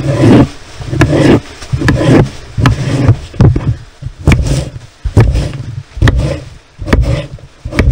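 Kitchen knife cutting a zucchini on a wooden cutting board: the blade slices through the flesh and knocks on the board, about one or two cuts a second at an irregular pace.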